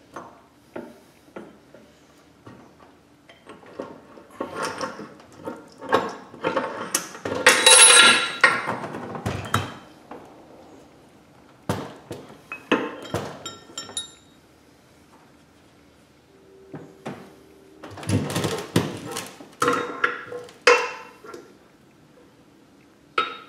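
Steel parts of an NV4500 manual transmission clanking and clinking as the gearbox is taken apart, with a loud stretch of clatter about seven seconds in, a brief metallic ring a few seconds later, and more clatter near the end.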